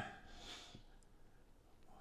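Near silence, with a faint breath through the nose about half a second in.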